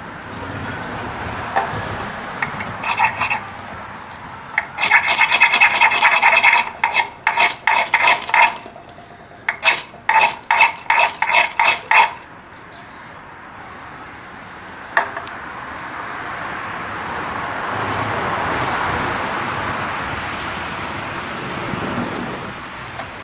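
A hard edge scraped forcefully and repeatedly: a fast run of rasping strokes, then about a dozen separate strokes, each with a gritty screech. A soft rushing noise then swells and fades over the last several seconds.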